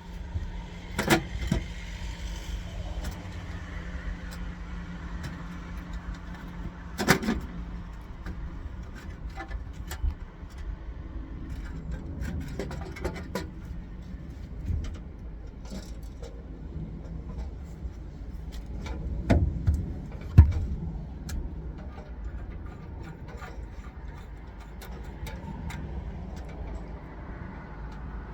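A steady low rumble with many scattered clicks and rattles and a few sharper knocks, the loudest about twenty seconds in.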